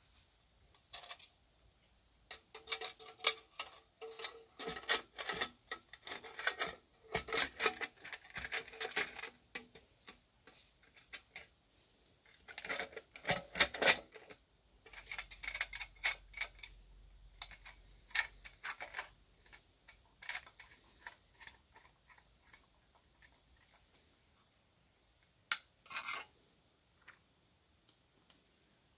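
Nickel-plated metal parts of a Hasag 351 L petrol pressure lamp clicking and clinking as they are handled and fitted together: quick clusters of small metallic taps, thickest and loudest in the first half. The taps then thin out to scattered ones, with a short pair near the end.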